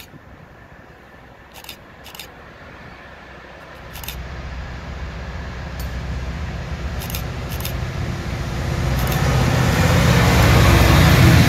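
Diesel freight locomotives (SSR's BRM and VL class) approaching with a train, their engines' low drone growing steadily louder from about four seconds in until they are close by near the end.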